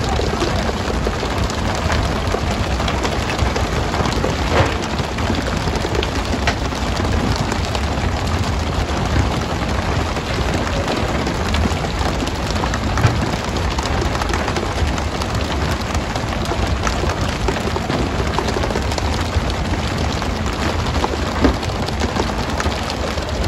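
Steady hiss and splash of the boat's water sprays hitting the sea around the pole-and-line fishermen, with a low rumble underneath and a few sharp thumps of skipjack tuna landing on the deck.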